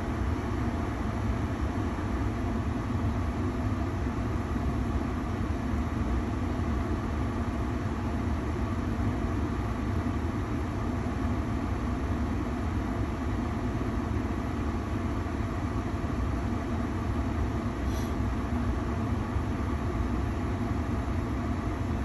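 Ford Maverick's cabin heater blower running on full, air rushing steadily out of the main front dash vents.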